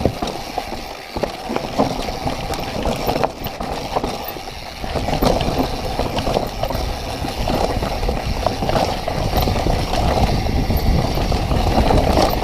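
Mountain bike riding down a rough, rocky trail: knocks and rattles from the tyres, frame and chain over rocks and roots, with wind rumbling on the microphone that grows much louder about five seconds in.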